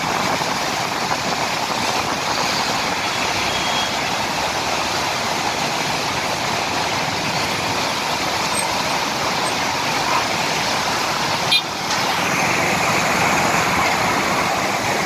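Steady rushing roar of the flooded Palar river pouring beneath a road bridge, mixed with road traffic passing on the bridge. A short knock comes a little past two-thirds of the way in.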